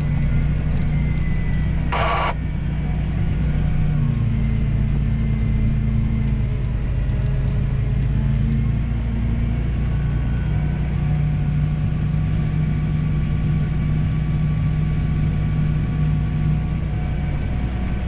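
Steady drone of a diesel engine heard from inside the cab of a harvest machine, with a short hiss about two seconds in.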